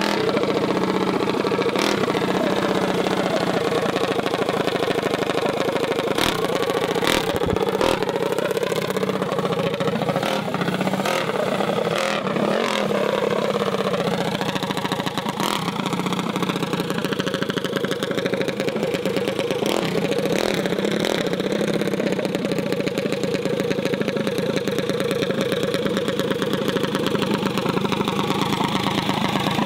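Mini bike engine running steadily, its pitch slowly rising and falling with the throttle, with a few sharp clicks in the first half.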